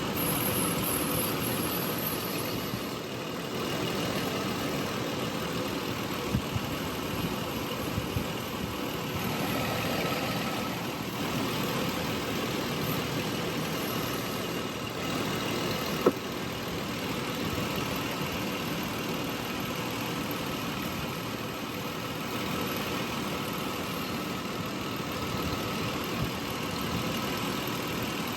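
2008 Toyota Tacoma engine idling steadily with the A/C running, as refrigerant is charged into the system; a few light clicks sound over it.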